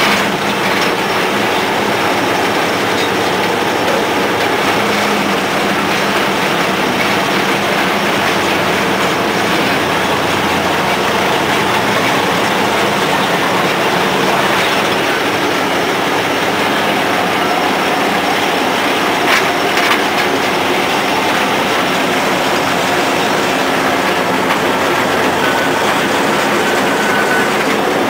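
1930 Moore Speedcrane model 1500 heard from the operator's seat: its Cummins diesel engine runs steadily along with the noise of the crane's open gears and chain drive as the levers are worked. Two brief knocks come a little over two-thirds of the way through.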